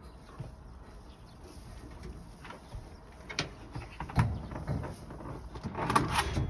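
Newfoundland dog's paws scraping and knocking against a wrought-iron window grille while it tries to reach a ball trapped behind it: scattered sharp clinks, a few at first and a quick cluster near the end.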